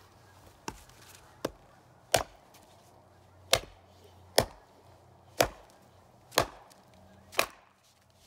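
Hand axe chopping into a stick of wood stood on a stump chopping block: two light taps, then six heavy, sharp chops about a second apart.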